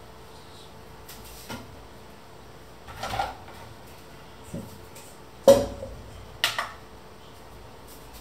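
Kitchenware handled on a wooden worktop: a clatter about three seconds in as a metal kitchen scale is moved, then a louder knock with a brief metallic ring as a stainless-steel mixing bowl is set down, and another clatter just after.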